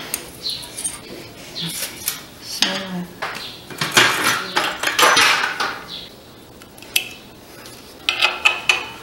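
Steel hand wrench clinking, scraping and clicking against bolts on a Honda CG 150 motorcycle engine as fasteners are loosened, with a run of sharp ringing metallic clicks near the end.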